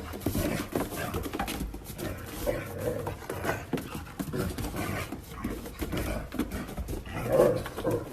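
Dogs making short vocal noises amid scuffling and clattering, the loudest near the end.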